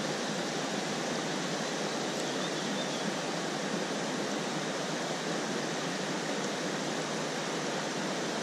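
Shallow river running over stony riffles: a steady, even rush of water.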